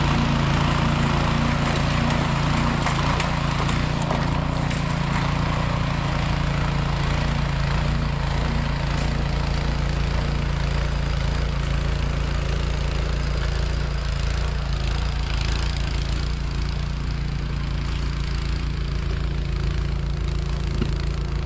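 Walk-behind snowblower engine running steadily at a constant speed while it is pushed through deep snow to cut a path.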